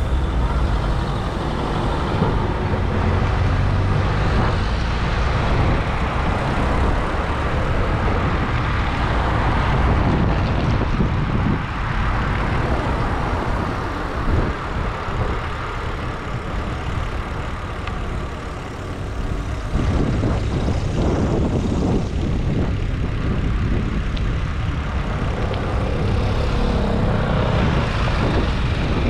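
City street traffic: a steady rumble of cars and other motor vehicles passing, with the level jumping up about two-thirds of the way through as a louder vehicle goes by.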